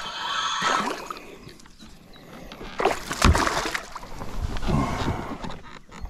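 A hooked pike of about 50 cm thrashing and splashing at the surface beside the boat: a few irregular bursts of splashing, the loudest about three seconds in.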